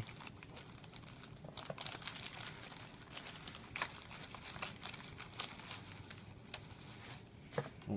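Tissue paper being pulled apart and unfolded by hand, rustling and crinkling in an irregular crackle with a few sharper crinkles.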